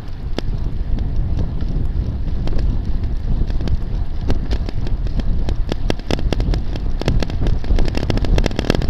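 Wind rumbling over the microphone of a camera mounted on a moving road bicycle, with many sharp clicks and rattles, more of them in the second half.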